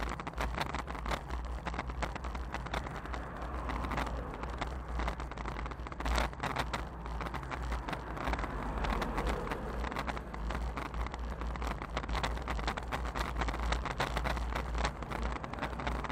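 Wind buffeting an action camera's microphone while riding a bicycle on asphalt: a steady deep rumble with hiss and scattered small crackles.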